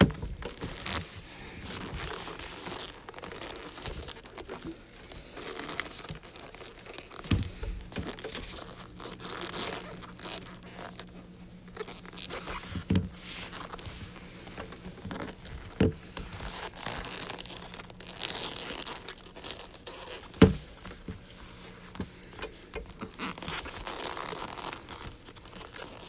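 Padded boxing gloves rubbing against each other and against a Rubik's cube as it is fumbled and turned, with a handful of sharp knocks of the cube or gloves against the mat and desk; the loudest knock comes about two thirds of the way through.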